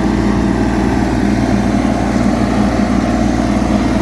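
Mini excavator's diesel engine running loud and steady while the machine pushes dirt back into a hole.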